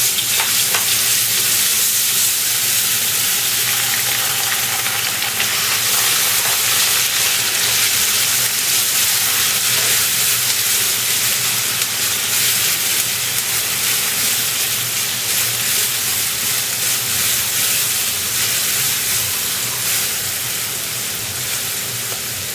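Ginger-garlic paste sizzling in hot oil with mustard and cumin seeds in a non-stick kadai, stirred with a spatula. The steady sizzle eases a little near the end.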